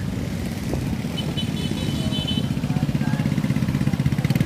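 Street traffic with an engine running close by, getting steadily louder toward the end as it approaches.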